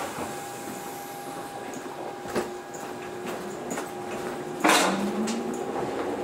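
Toyohashi Railway 1800-series electric train standing with a steady hum and a few clicks, then a sudden burst of air hiss about three-quarters of the way in. Right after, the traction motors start with a rising whine as the train begins to pull away.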